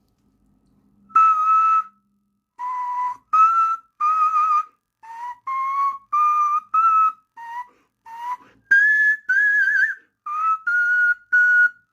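A whistle-like tune of about fifteen short, clear notes, a few with a wavering vibrato, played by blowing through a hole in an improvised everyday-object pseudo-instrument, like an ocarina. The tune starts about a second in and climbs a little higher near the end.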